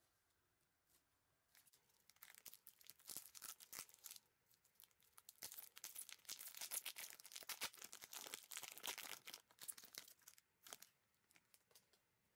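A foil-wrapped trading-card pack crinkling and being torn open by hand: crackly rustling with sharp clicks that starts a second or two in, is loudest around the middle, and dies away near the end.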